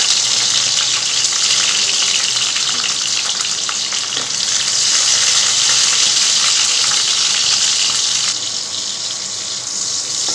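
Green bell pepper pieces sizzling loudly as they fry in hot oil in a nonstick pan, with a metal ladle stirring and scraping through them. The sizzle eases a little for a couple of seconds near the end.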